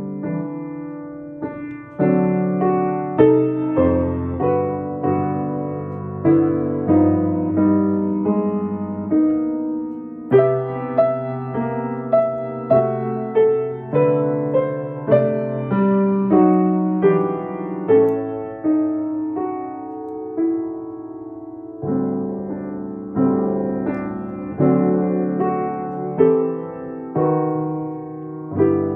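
Kawai grand piano played solo, both hands, in a slow jazz ballad: chords and melody notes struck about once or twice a second, each ringing and fading before the next.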